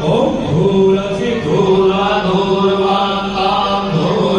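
Sanskrit puja mantras being chanted, sung on long, steady pitches.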